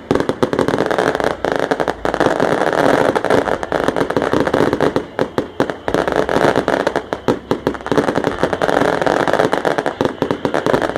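Dense, continuous crackling: rapid sharp pops running close together, loud and unbroken.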